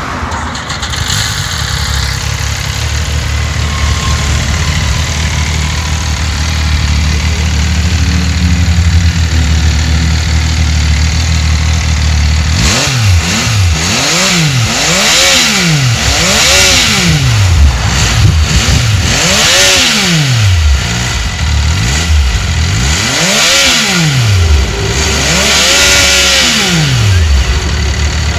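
Benelli TNT motorcycle engine idling steadily, then revved hard through the exhaust in a string of quick blips, each rev climbing and dropping back, about one every two seconds.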